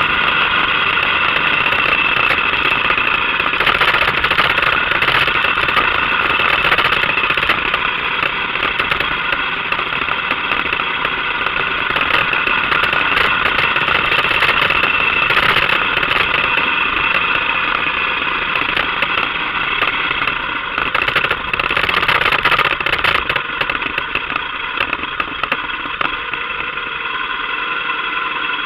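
Motorcycle engine running steadily as the bike rides along a gravel road, with road and wind noise mixed in. Near the end it eases off and slows to a near idle as the bike comes to a stop.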